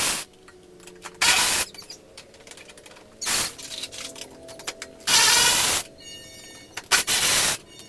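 Handheld cordless power tool spinning a 3/8-inch Allen bit in four short bursts, backing out the bolt of the Corvette's rear shark bar. There are faint small ticks between the bursts.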